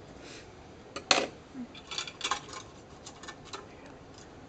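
Steel dissecting instruments clinking and clacking against a metal dissecting tray: one sharp clack about a second in, then a quick run of lighter clicks and taps.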